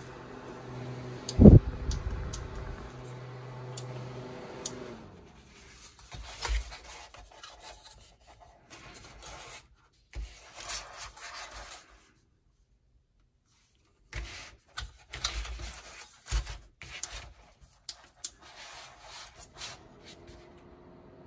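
Hands handling a plastic battery camping fan and working its fold-out hanging hook: rubbing, scraping and scattered clicks, with a loud thump about a second and a half in. A steady hum sits under the first few seconds and returns near the end, and the sound drops out completely for about two seconds in the middle.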